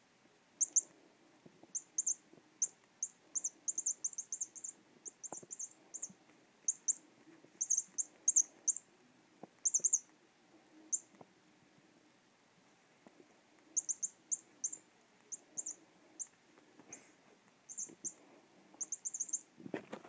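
Chirping bird cat toy sounding runs of short, high-pitched electronic chirps as the cat grabs and bites it, falling silent for a couple of seconds in the middle, over faint rustling of paws on cloth.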